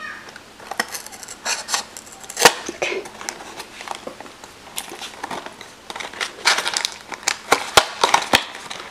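Small cardboard blind box handled and opened by hand: scattered taps, clicks and scrapes of cardboard and its flaps, with a few sharper clicks.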